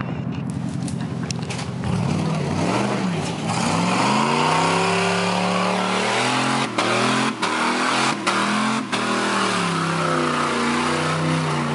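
Off-road Jeep engine revving under load, its pitch rising and falling again and again, with a few brief dropouts in the middle.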